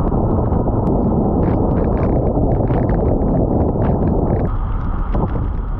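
Wind buffeting the microphone as the bike moves, a loud steady rumble that eases about four and a half seconds in.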